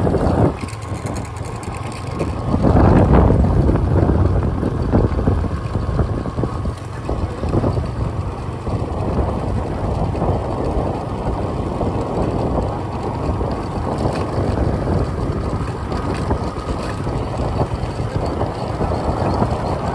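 Wind buffeting the microphone while moving along at riding speed, a steady low rumble that swells louder about three seconds in.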